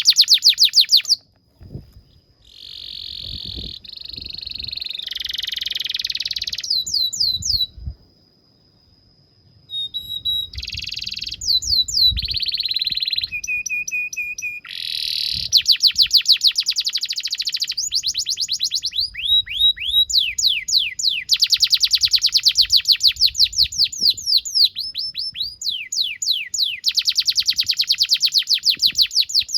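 Domestic canary singing a long song: fast trills of rapidly repeated downward-sweeping notes, buzzy rolls and a few short held whistles. There are two brief pauses, about two seconds in and about eight seconds in.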